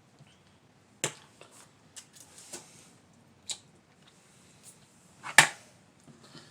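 A few sharp clicks and knocks of objects being handled, spaced irregularly, with one louder knock about five seconds in.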